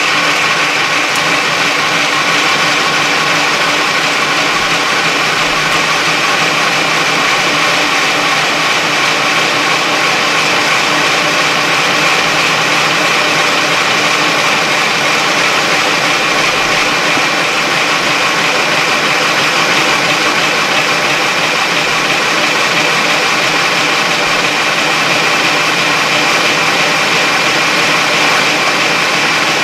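Electric motors and gearbox of a pink Barbie Corvette Power Wheels ride-on toy car whining steadily as its plastic rear wheels spin on asphalt in a held burnout.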